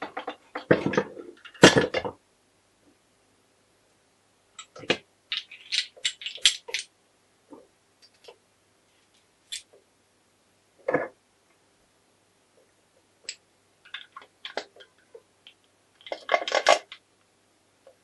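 Scattered metallic clinks and knocks as Honda MT5 gearbox gears and shafts are handled and set down during assembly. The loudest knocks come in the first two seconds and in a quick cluster near the end.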